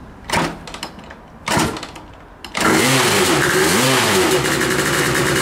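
Lambretta scooter with a Gran Turismo GT300 liquid-cooled two-stroke single being kick-started: two short coughs, then it catches about two and a half seconds in, is revved up twice and settles into a steady run.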